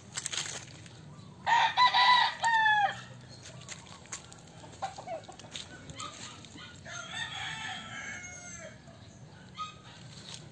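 A rooster crows once about a second and a half in, a call in several short parts ending in a long falling note. A fainter call follows around seven seconds in.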